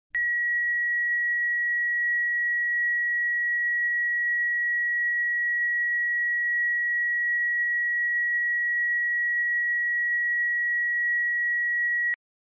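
A single steady, high-pitched electronic tone, one pure beep held unchanged for about twelve seconds, which cuts off suddenly near the end.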